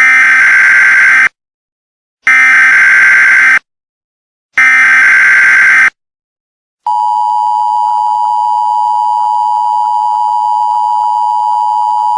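Emergency Alert System broadcast tones: three bursts of digital header data, each about a second long and separated by short gaps. About a second later the steady two-tone attention signal begins, a sustained alarm tone.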